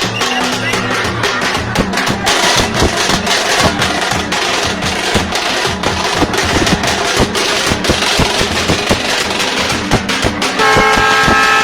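Music with dense, rapid drumming and percussion, and a steady horn blast of about a second near the end.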